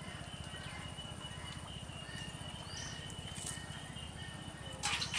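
Rural outdoor ambience: a bird chirps briefly a couple of times over a steady high thin drone and a low rumble. Near the end comes a short burst of rustling and clicking.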